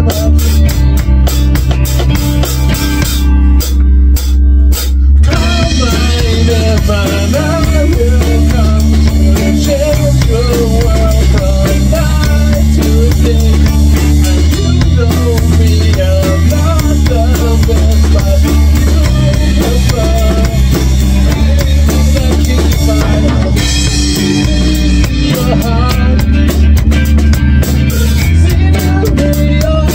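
A small rock band playing live: drum kit, strummed acoustic guitar and an electric guitar together. The cymbals drop out for about two seconds around four seconds in, then the full kit comes back.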